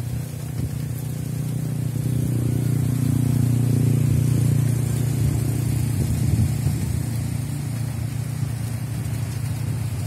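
Strong wind buffeting the microphone: a low, fluttering rumble that swells a couple of seconds in, peaks midway and then eases slightly.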